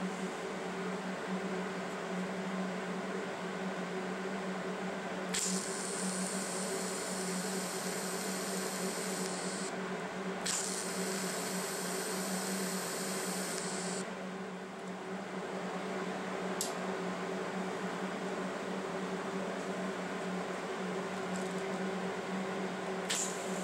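TIG welding arc hissing as it tacks the steel parts of a welding jig together, in two stretches of about four seconds each: the first starts about five seconds in, the second follows a moment later. A steady electrical hum runs underneath, and a few short blips come near the end.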